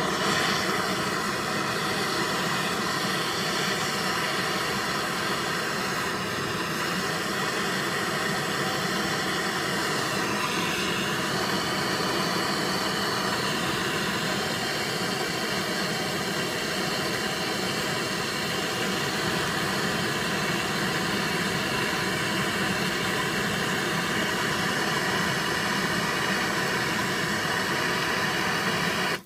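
Handheld gas blowtorch burning with a steady hiss as its flame is held on a burning paper piñata. The hiss keeps an even level throughout.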